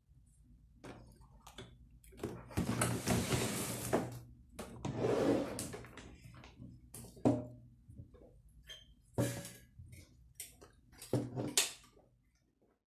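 Plastic food containers and glass jars being handled and set down on a wooden table: a series of separate knocks and clatters, with two stretches of sliding and rustling in the first half.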